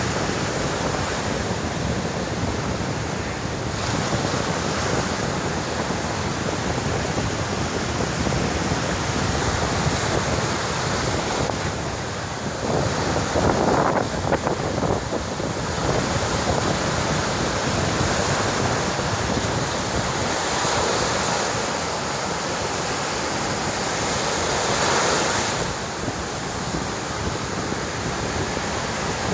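Rough surf breaking on a beach in stormy wind, a continuous wash of waves with wind buffeting the microphone. The surf swells louder for a couple of seconds in the middle and again briefly near the end as bigger waves crash.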